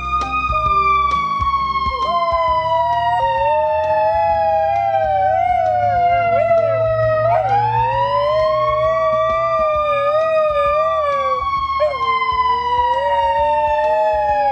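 A fire engine's siren wailing, slowly falling in pitch, then winding back up about seven seconds in and falling again. A dog howls along with it from about two seconds in, a lower, wavering howl in long stretches with short breaks between.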